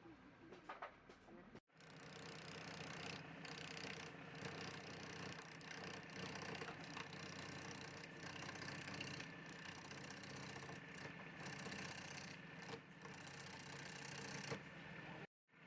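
Wood lathe running with a steady motor hum under a broad hiss. The sound drops out abruptly once shortly after the start and again near the end.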